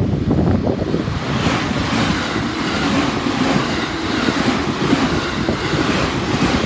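A train on the JR Tokaido Main Line passing close by at a level crossing: a loud, steady rush of wheel and air noise.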